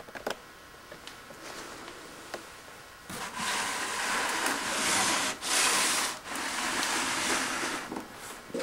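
Cardboard box and loose papers rustling and scratching as a Siamese kitten rummages inside the box. A few faint clicks come first; the rustling starts about three seconds in and goes on in long stretches with two short breaks.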